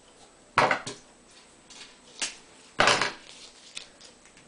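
Scissors snipping and handling strips of duct tape: several short, sharp crackly noises, the longest and loudest about three seconds in.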